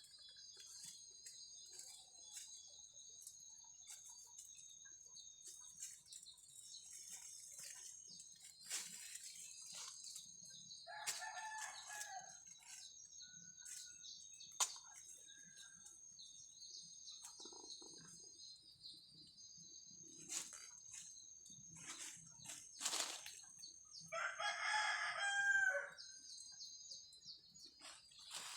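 A rooster crowing twice: a shorter crow about 11 seconds in and a longer, louder one about 24 seconds in. Both sound over a steady high-pitched buzz and scattered clicks.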